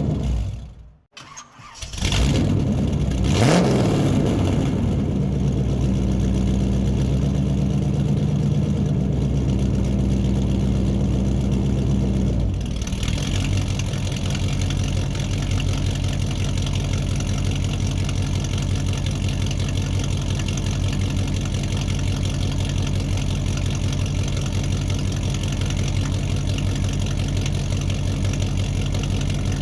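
After a moment of silence, an engine starts about two seconds in and then runs steadily. About twelve seconds in it changes to a different, steady running note.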